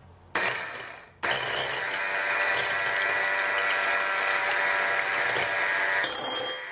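Electric hand mixer whirring with its wire beaters in a glass bowl, beating eggs with salt and sugar: a short burst, then a steady run of about five seconds that drops near the end.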